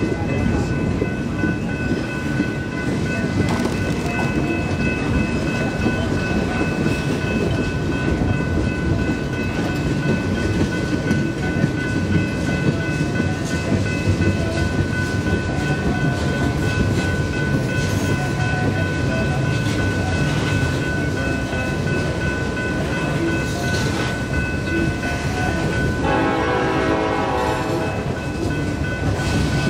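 Freight train of tank cars and covered coil cars rolling steadily across a steel trestle: a continuous rumble of wheels and cars, with a steady high whine throughout. A brief horn-like tone comes near the end.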